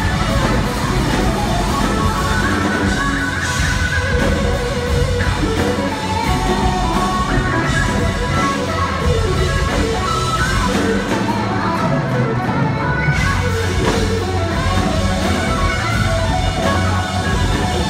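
Live rock band playing an instrumental passage: an electric guitar plays a bending lead line over drums and bass.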